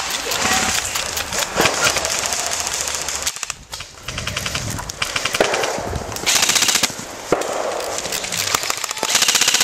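Airsoft guns firing on full auto in several short, rapid rattling bursts, spaced a second or two apart.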